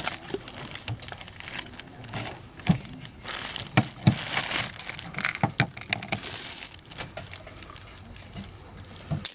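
Plastic bag crinkling and rustling as a hand rummages in it, with a few sharp knocks in the middle.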